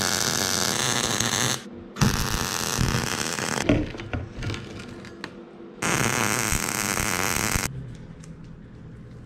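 Wire-feed (MIG) welder arc crackling and hissing in three bursts of roughly two seconds each, with short pauses between them. The weld joins a fitting between a steel tank and a pipe barrel.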